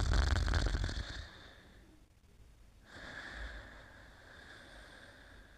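Snoring of a sleeper: a loud, rattling snore in the first second, then a softer breath about three seconds in.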